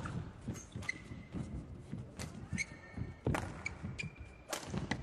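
Badminton rally: rackets strike the shuttlecock with sharp cracks roughly once a second, between short squeaks and thuds of players' shoes on the court mat.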